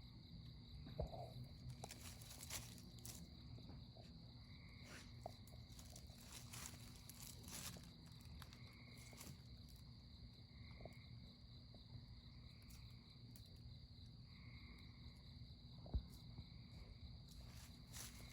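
Faint evening insect chorus: a steady high trill, with a lower buzzing call repeating every second or two. A low steady hum runs beneath, and a few sharp clicks stand out, the loudest about a second in and near the end.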